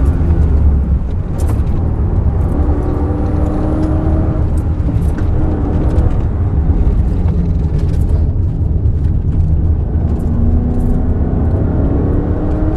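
Mercedes-Benz SL500's V8 engine running hard under load on a hill climb, its pitch climbing in stretches as the revs build, over a heavy low rumble.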